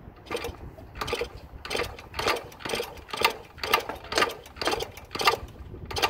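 A 1977 Yamaha GT80's small two-stroke single being kicked over again and again without firing. It makes a rhythmic mechanical clatter, about two strokes a second.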